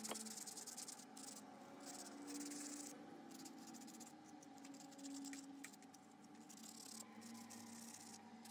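Sandpaper rubbed by hand over a carved wooden scoop, a faint scratchy rasp in repeated strokes with short pauses, sanding down cracks filled with white glue and wood dust.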